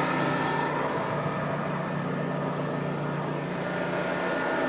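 Pressure-washing water-reclamation rig running with a steady mechanical hum.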